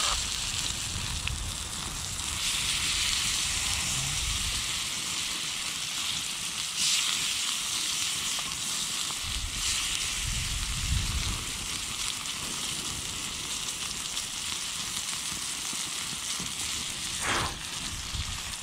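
Crow meat frying in shallow cooking oil in a lightweight pan over a small twig-fired stove, with a steady sizzle. One short knock near the end.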